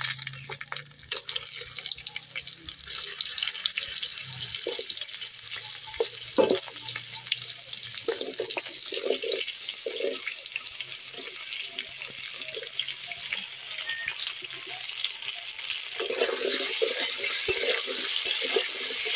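Potato wedges and taro pieces sizzling as they fry in hot oil in a metal kadai, with knocks as more pieces go in. A spatula clatters and scrapes as they are stirred near the end, when the sizzling gets louder.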